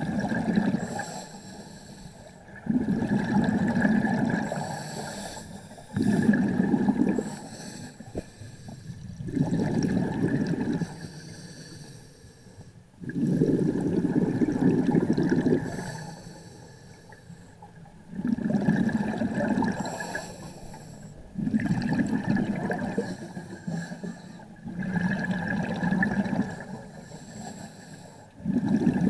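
Scuba diver breathing through a regulator underwater: bursts of exhaled bubbles rush out about every three seconds, nine times, with quieter inhalations between.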